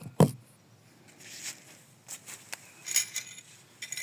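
A single loud knock, then light clicks and clinks of small hard parts being handled while working on a Husqvarna 372 chainsaw's recoil starter.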